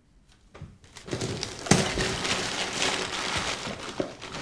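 Tissue paper rustling and crinkling as a hand digs through a gift box to unwrap a present, with one sharper knock a little under two seconds in.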